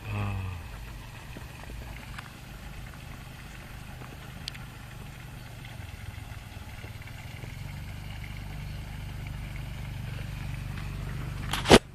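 A steady low engine hum that grows slowly louder, with a sharp click just before the end.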